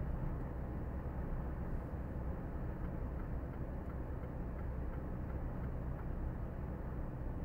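Steady engine and road noise of a truck cruising at about 84 km/h, heard from inside the cab.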